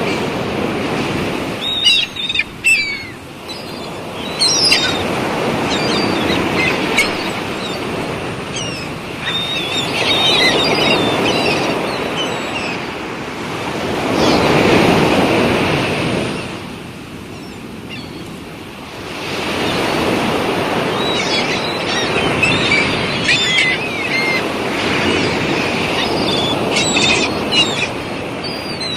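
Sea waves washing in and out, swelling to a peak about halfway through and then ebbing, with small birds chirping over them in several short bouts.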